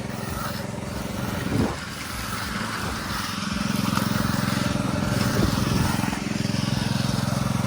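A small engine running steadily, getting louder about three seconds in and easing briefly near six seconds.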